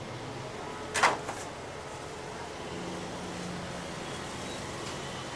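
A sharp clatter of kitchenware: one loud knock about a second in with a smaller one just after, as dim sum is moved from a metal steamer pan onto small plates. A steady low hum runs underneath.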